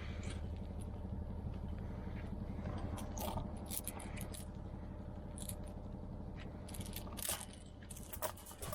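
A steady low engine drone, from the heating-oil delivery lorry, runs throughout, with crunching, scraping footsteps and scattered clicks from carried gear over it.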